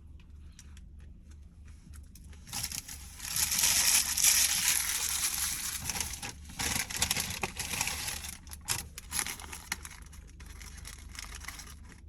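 Food packaging crinkling and rustling as it is handled. The rustling starts about two and a half seconds in, is loudest over the next few seconds, then thins out into scattered crackles.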